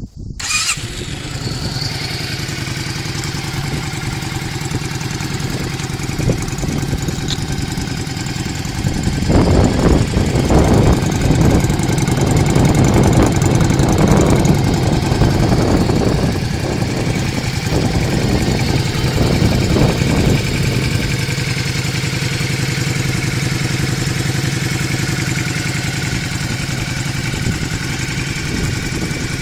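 Yamaha Drag Star Classic 400's V-twin exhaust with a Kentec brass-tip silencer insert fitted: the engine fires up just after the start and idles, is revved in a series of throttle blips for about ten seconds in the middle, then settles back to idle.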